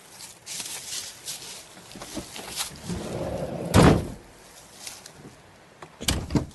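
Phone handling and rustling, with one loud dull thump of a Honda Spike's door being shut about four seconds in and a quick double thump near the end as a door is worked again.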